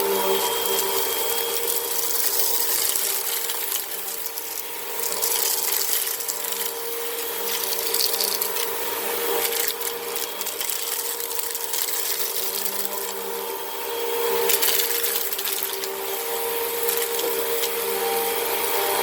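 Upright vacuum cleaner running on a low pile setting over a rug seeded with sand, its motor holding a steady whine under a rushing hiss from the brushroll and airflow. The loudness swells and eases a few times as the vacuum is worked back and forth.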